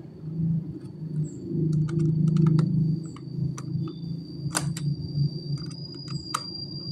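Scattered sharp clicks and taps of small laptop parts being handled and fitted back together, over a low background rumble that swells about two seconds in, with a faint steady high whine.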